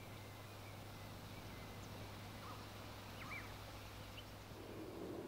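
Quiet outdoor ambience with a few short bird chirps, and a low rumble that starts to build near the end.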